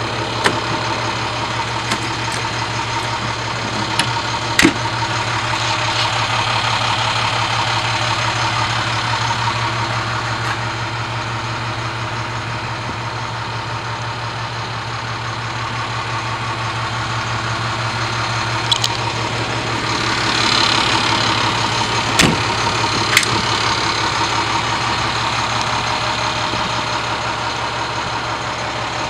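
International 4300 ambulance's diesel engine idling steadily, with a few sharp clicks and knocks from compartment latches and doors being worked.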